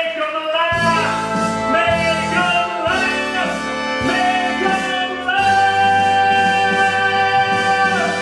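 Live show band playing the instrumental music for a comic dance routine: a melody with sliding notes over a bass line, settling into one long held note about five and a half seconds in.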